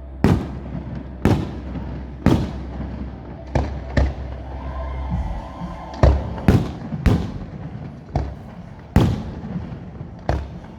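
Display fireworks going off: about a dozen sharp bangs at uneven intervals, each with a short echoing tail.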